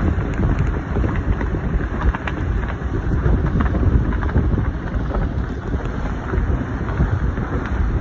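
Wind buffeting the microphone as a low rumble over the steady rush and splash of water along a Sabre 34 sailboat's hull, sailing upwind.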